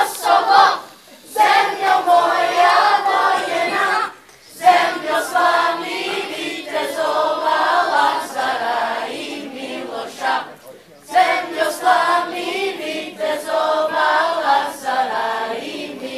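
Children's and youth choir singing a cappella, mostly high voices, in sung phrases broken by short pauses about one, four and eleven seconds in.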